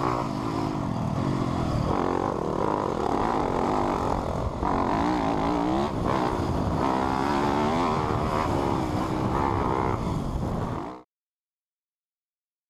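Four-stroke off-road engine blipping its throttle through a slip-on exhaust, the pitch rising and falling again and again. The engine sound cuts off suddenly near the end.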